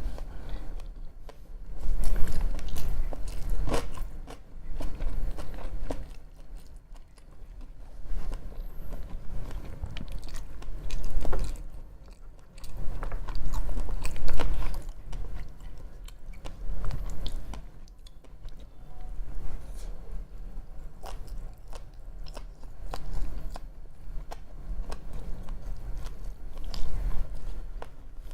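Close-miked chewing and biting of sushi, with wet mouth clicks, coming in bursts every two to three seconds.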